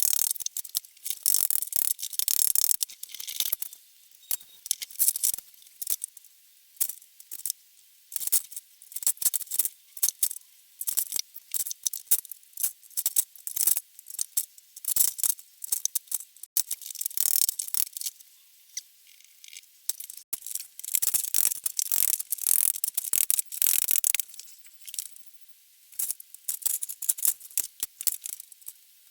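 Plastic clip-together floor tiles clattering and clicking as they are handled, laid and snapped together: a quick, irregular run of light, sharp clicks with short lulls.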